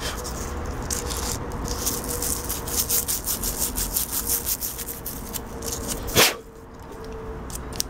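Sandpaper rubbed back and forth on a compressor's copper tube in quick scratchy strokes, cleaning the copper bright before brazing. The rubbing stops about six seconds in with a single knock.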